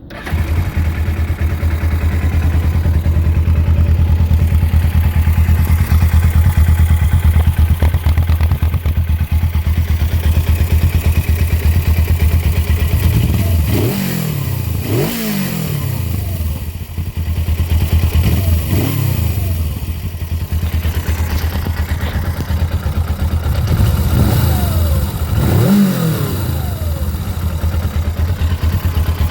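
Suzuki GS500E's air-cooled parallel-twin engine on its stock exhaust, idling steadily, then blipped through several quick revs in the second half, each rising and falling back to idle.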